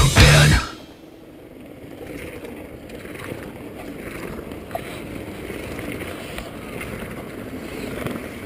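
Loud rock music cuts off abruptly just under a second in. It gives way to a steady rushing of wind on an action camera's microphone and the noise of a mountain bike rolling over a dirt trail, with a few faint ticks and rattles.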